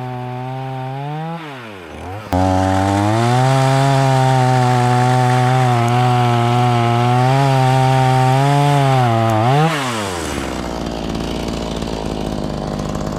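Black Max 16-inch chainsaw's 38cc two-stroke engine at full throttle. It drops off about a second in and snaps back to full revs at about two seconds. It holds there, pitch sagging a little under load as the chain cuts wood, then is released to idle near the ten-second mark.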